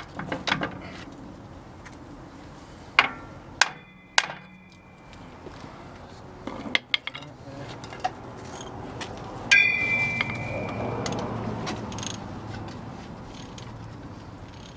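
Sharp metallic clanks of hand tools and steel brake parts being worked on a bus drum-brake assembly. Three quick clanks come about three to four seconds in, and a louder clank rings briefly a little past halfway.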